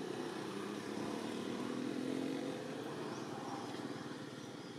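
Steady low drone of a distant engine, with a faint humming tone that fades a little toward the end.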